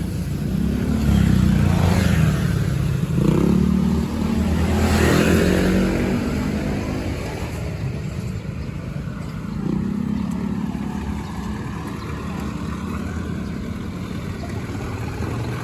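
Motor vehicle engines in street traffic, running and passing close by. They are loudest in the first six seconds, with an engine note rising and falling around five seconds in, and swell again about ten seconds in.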